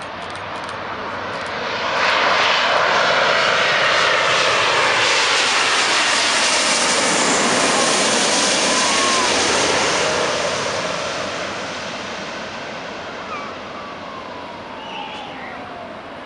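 Boeing 777-200ER airliner's Rolls-Royce Trent engines passing low overhead on landing approach: the jet noise swells sharply about two seconds in, holds loud for about eight seconds, then fades as the plane moves away, with a whine falling in pitch as it goes by.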